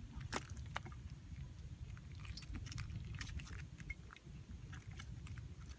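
Live eels and fish stirring in a woven bamboo basket: faint, scattered wet clicks and small slaps over a low rumble.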